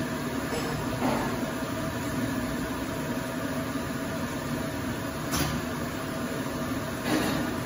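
Automatic high-frequency welding and cutting machine running: a steady machine hum with three short sharp sounds, about a second in, around five seconds in and near the end.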